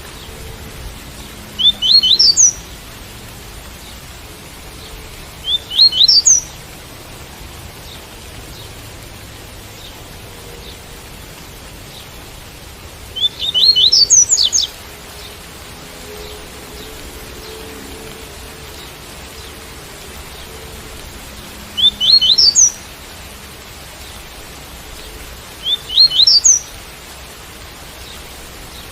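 Double-collared seedeater (coleiro) singing its tui-tui song: five short phrases of quick, rising, high notes a few seconds apart, over a steady hiss of rain.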